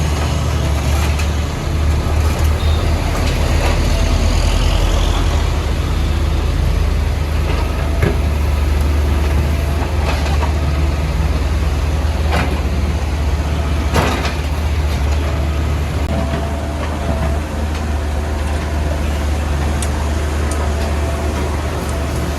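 Heavy diesel engine of a backhoe loader running steadily under work, with a few sharp metallic knocks in the middle, typical of the bucket striking the road surface.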